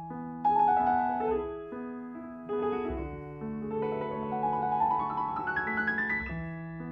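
Background piano music: slow held chords, with a rising run of notes through the second half.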